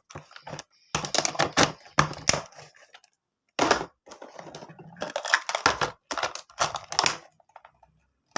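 Small items and plastic packaging being handled and set down: crinkling, rustling and clicking in several bursts, with short breaks between them.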